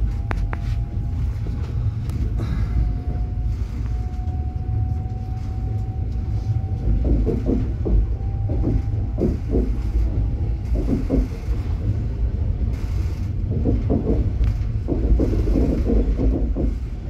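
Passenger train running along the line: steady low rumble of wheels on rails, with a faint steady whine and irregular clatter starting about seven seconds in.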